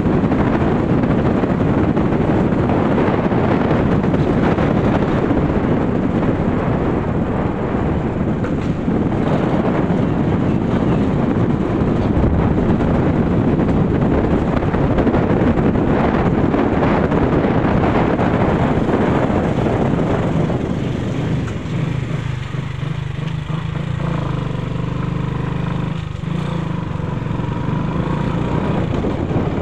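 Motorcycle riding along a road: a steady rush of wind on the microphone over the running engine. About two-thirds of the way in the rush thins and the engine's steady low hum comes through more clearly.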